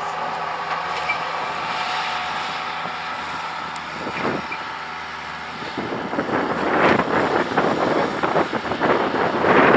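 Skid loader engine running steadily; about six seconds in, a louder rough crackling noise rises over it and continues.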